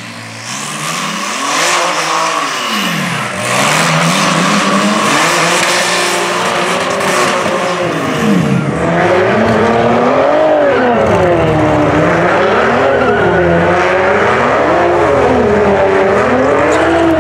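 Cadillac ATS-V twin-turbo V6 revving hard in a burnout, its pitch rising and falling, with the hiss of spinning tyres. In the second half the revs swell and drop regularly, about every two seconds.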